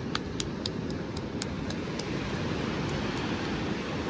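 Steady low rumble of surf and wind on a beach. Over the first second and a half a run of quick, sharp ticks comes about four a second, then fades out.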